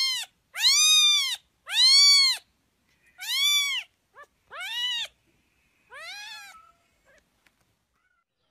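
Young kitten meowing over and over: about six high, arching meows, each under a second long and about one a second. The last ones drop in pitch and grow fainter, and the calling stops a little before the end.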